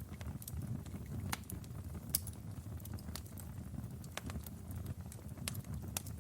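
Wood fire burning in a fireplace: irregular sharp crackles and pops over a steady low rumble of flame, with the loudest pop about two seconds in.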